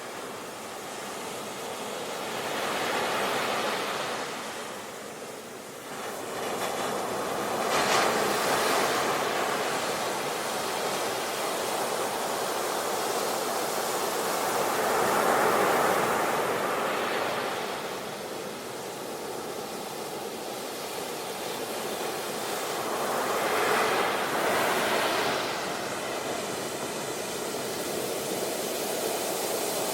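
Sea waves breaking on a beach, the surf rising and falling in slow surges every several seconds.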